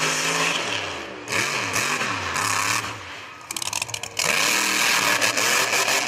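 Engine of a lifted mud-bog truck revving up and easing off again and again as it drives through mud, over a steady hiss. There is a short rattle of clicks about three and a half seconds in.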